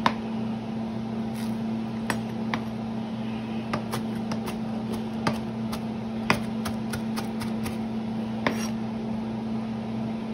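Knife chopping cilantro on a plastic cutting board: irregular sharp taps of the blade hitting the board, sometimes several in quick succession, over a steady low hum.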